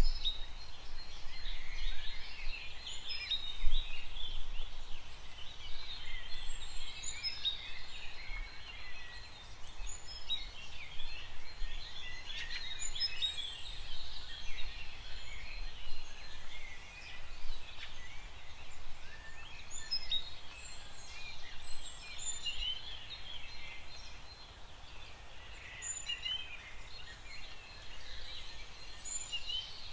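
A chorus of many small birds chirping and singing together, overlapping short calls without pause.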